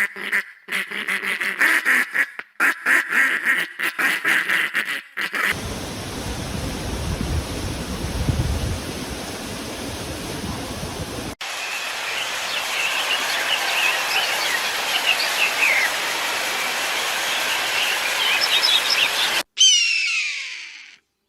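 A duck quacking in fast repeated calls for about the first five seconds. After that comes a stretch of steady rushing noise, then bird chirps over background noise, and near the end a short sound that falls in pitch.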